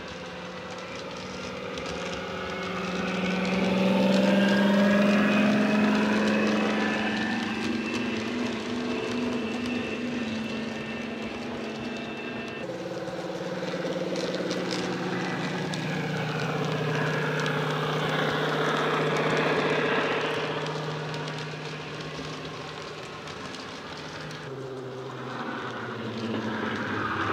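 Bachmann model Class 55 Deltic's DCC sound decoder playing a Deltic engine sound file through an EM2 speaker, a deep, bass-heavy diesel engine note. The note glides up and down in pitch and swells louder twice as the loco runs round the layout.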